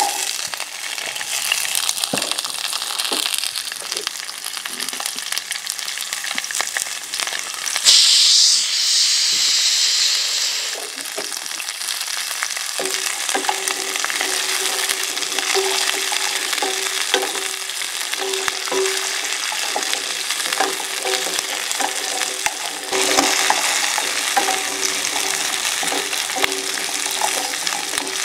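Small shallots sizzling as they sauté in a little oil in a steel pot, stirred with a wooden spatula. The sizzle swells briefly about eight seconds in and gets louder again about two-thirds of the way through.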